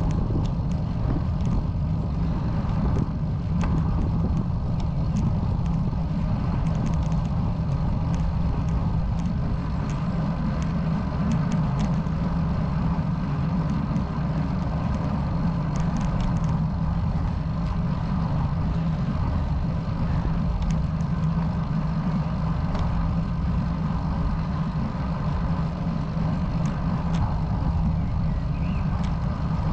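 Steady wind rush on the camera microphone and tyre noise on asphalt from a moving ride, strongest in the low range, with faint scattered ticks.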